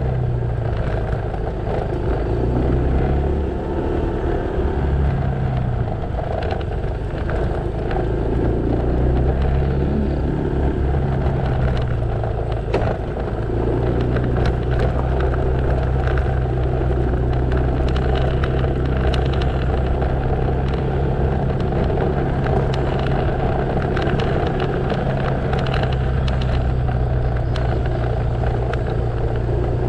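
Motorcycle engine running while riding along a road, with road and traffic noise. The engine note changes a few times in the first dozen seconds, then holds steady.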